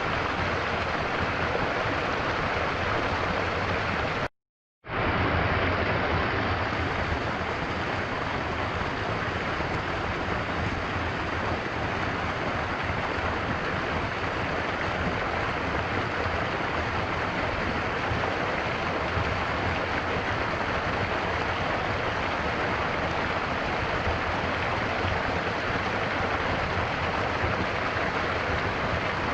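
Stream water flowing steadily, a continuous rushing of water, broken once by a half-second gap of silence about four seconds in.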